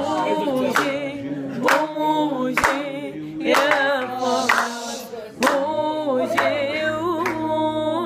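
A woman and a man singing an Arabic folk song together without instruments, with hand claps keeping time about once a second.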